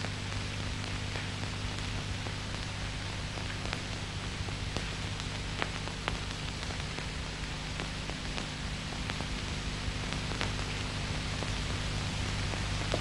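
Steady hiss and low hum with scattered faint clicks: the background noise of an old 1950s film soundtrack with no dialogue or music.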